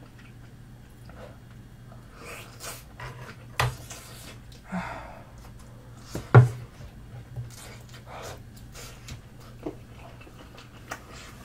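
A person chewing a mouthful of fish cake, breathing audibly between chews, with a few soft clicks and knocks; the loudest knock comes a little past the middle. A low steady hum sits underneath.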